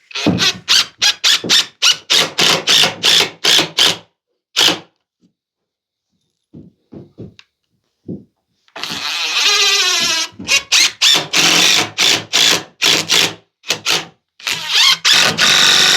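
Power drill working into wood, run in quick trigger bursts, then in longer runs under load whose whine wavers and holds, with more short bursts between.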